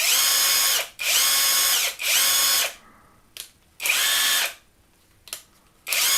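Cordless ratchet's electric motor running free in short trigger bursts at a high speed setting: a high whine that starts and stops about four times, with a couple of brief clicks in the gaps.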